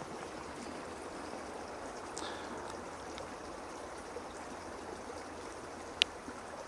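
Steady rushing outdoor background noise, even and unchanging, with one sharp click about six seconds in.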